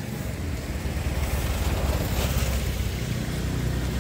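Steady low rumble of a motor vehicle engine running, swelling slightly around the middle.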